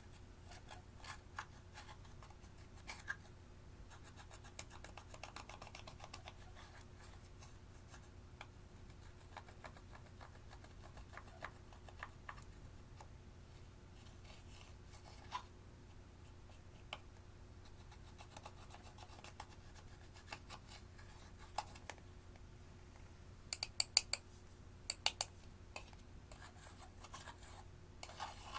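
Faint scratching and scraping with scattered small sharp clicks as slime and eyeshadow powder are worked by hand, with a short run of louder clicks near the end.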